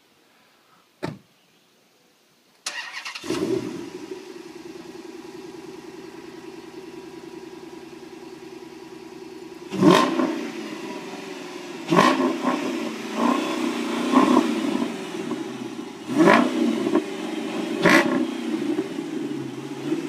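A car door shuts with a thump about a second in; near three seconds in the Dodge Charger SRT8's 6.1-litre Hemi V8 cranks and catches on a cold start, then idles steadily. From about ten seconds on it is revved in half a dozen short throttle blips, one every second or two.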